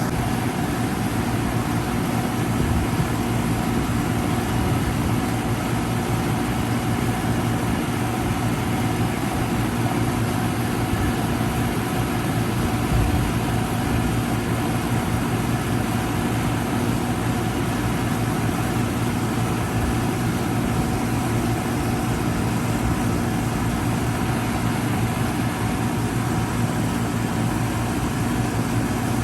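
A 1994 Goodman CK36 three-ton central air conditioner condensing unit running steadily: an even compressor hum under the constant rush of the condenser fan, with no change in pitch or level.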